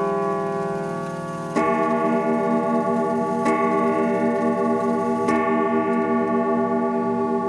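Howard Miller Raymond grandfather clock striking three evenly spaced notes about two seconds apart as it counts the hour, each struck by the chime hammers and left ringing over the last.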